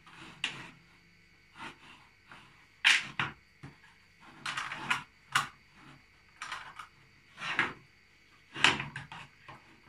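Hard plastic toy house pieces being handled, with irregular clacks and knocks as the roof and window sections are pressed, shifted and lifted.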